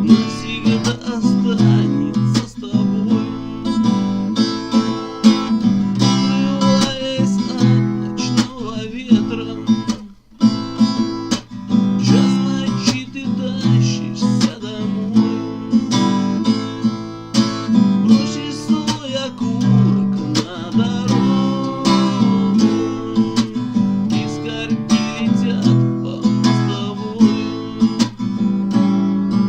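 Acoustic guitar played solo, chords picked and strummed, with a short break about ten seconds in.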